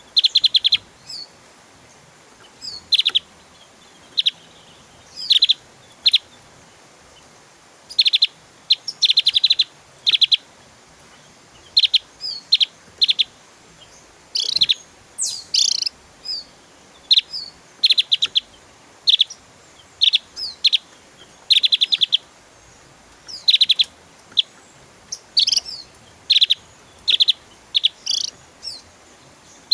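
Opior Jawa (Javan grey-throated white-eye) singing: short bursts of rapid, high repeated notes, a phrase every second or two, with a few higher sweeping notes mixed in.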